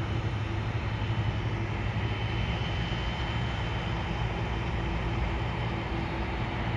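Boeing 747-400's four General Electric CF6 turbofans at taxi power as the jet rolls past: a steady low rumble with a faint high whine over it.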